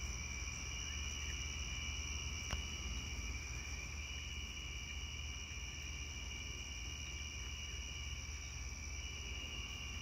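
Crickets chirping steadily in a night chorus over a low hum, with one short click about two and a half seconds in.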